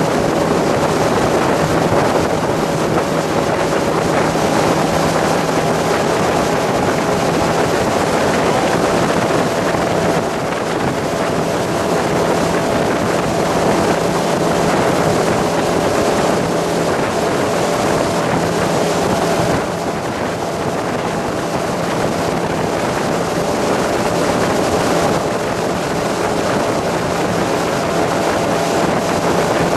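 Fire boat's engine running steadily, with a continuous hiss and wind buffeting the microphone.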